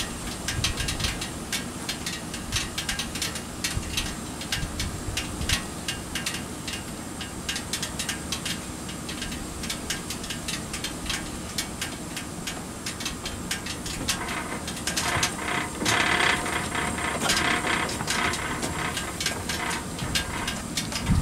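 Pit Boss gas griddle heating on high under a raw steak: rapid, irregular ticking and crackling over a low steady burner rumble, the plate and steak just starting to heat up. From about fourteen to twenty seconds in, a louder, higher chattering sound joins in.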